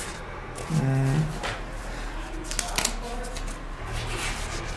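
Sheets of paper in a file being leafed through, rustling and flapping in several short bursts. A short hum from a voice about a second in.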